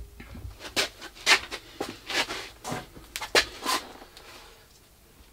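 A run of irregular sharp clicks, knocks and scrapes as hands handle and adjust the steel parts of a belt grinder, dying away about four seconds in.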